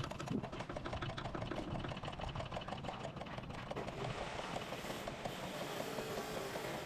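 A machine running, with a fast, even ticking of many beats a second over a steady noise.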